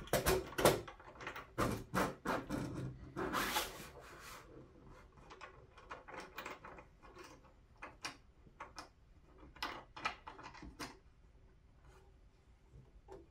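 A 3D-printed plastic mount knocking and scraping as it is slid down over a pole and its wing nuts are worked by hand: a quick run of sharp clicks and knocks, a longer scrape about three and a half seconds in, then lighter scattered taps.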